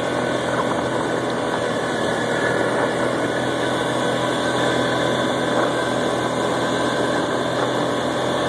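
ATV engine running at a steady speed while riding, heard from on board, with an even rush of noise over it.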